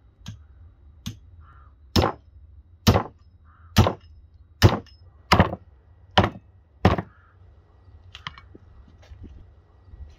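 Meat cleaver chopping bone-in lamb on a wooden log block: two lighter strikes, then seven heavy chops just under a second apart, followed by a few faint taps.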